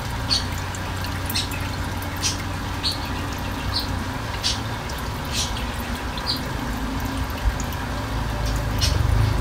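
Water dripping and trickling as a top-load washing machine finishes draining, with irregular drops about once a second over a steady low hum.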